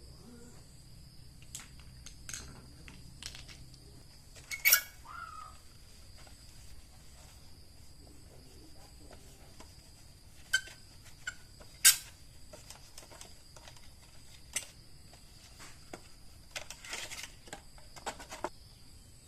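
Scattered clinks and knocks of small metal parts and hand tools being handled on a workbench during an electric fan repair, with two sharp louder knocks and a quick run of clicks near the end. A faint, steady, high-pitched whine sits underneath.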